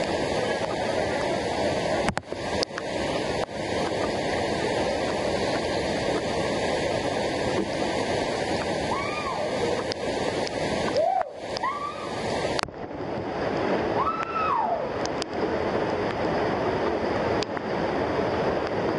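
Steady, continuous rush of water falling at a waterfall.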